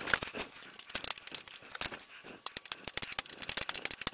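Steel combination spanner working the brake-hose bracket bolt on a car's front hub, with quick irregular metallic clicks and scrapes as the bolt is turned by hand. The bolt comes loose easily.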